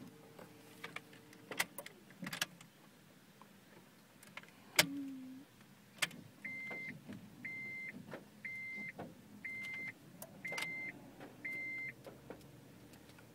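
Honda Insight dashboard warning chime beeping six times, about once a second, after the ignition is switched on. Before it come several sharp clicks, the loudest about five seconds in with a brief low hum after it.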